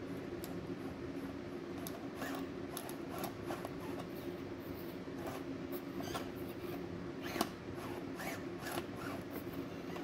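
Axial SCX24 1/24-scale RC crawler's small electric motor and gears whining steadily while it crawls over rocks, with its tires and plastic body scraping and clicking against the stone. A sharp knock about seven and a half seconds in is the loudest sound.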